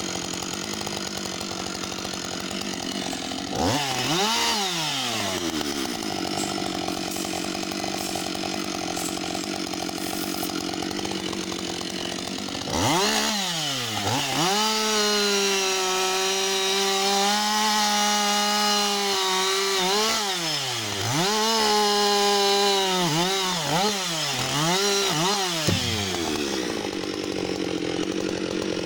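Husqvarna 560 XP two-stroke chainsaw idling, blipped once about four seconds in, then revved up at about thirteen seconds and held at full throttle while cutting into a fallen tree trunk. Near the end the throttle is pumped several times before it drops back to idle.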